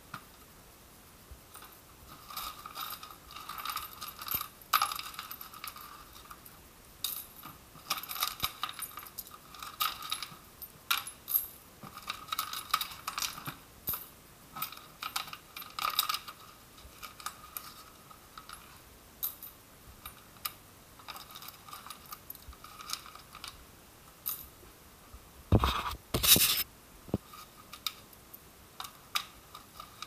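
Coins and grit rattling, clinking and scraping inside the plastic tank of a Kärcher WD1 wet and dry vacuum as it is tilted and cleared out by hand, in irregular short clicks, with one louder knock near the end.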